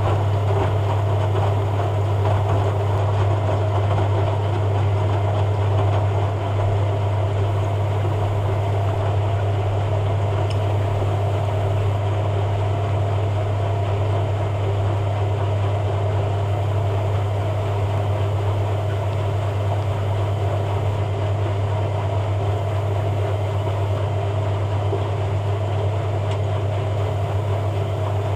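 Hoover A3786 Logic 1200 washing machine in its spin cycle, the drum spinning at a steady high speed with a strong, even low hum.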